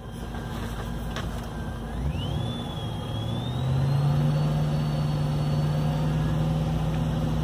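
Car engine revved up about two seconds in and held at a raised speed: its low running tone climbs and then stays steady, with a thin high whine rising in pitch alongside. The engine is being revved to raise the alternator's output, charging the lithium battery at about 30 amps.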